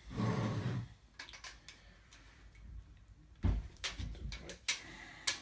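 A steel tape measure being handled: a short rustling noise at the start, then scattered clicks and knocks, one low knock the loudest, as the tape blade and its case are moved about against a metal-framed flood light.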